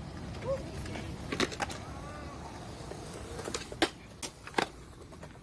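Skateboard wheels rolling on concrete, with several sharp clacks of the board and trucks striking coping and ledge, the loudest a little under four and about four and a half seconds in.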